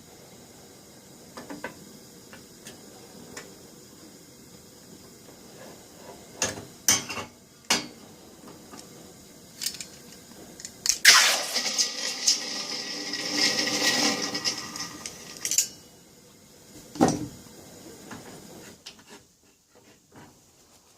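Several sharp metallic knocks and clinks, then a hot brass padlock quenched in water: a splash and a loud sizzling hiss about eleven seconds in, lasting some four seconds, followed by one more knock.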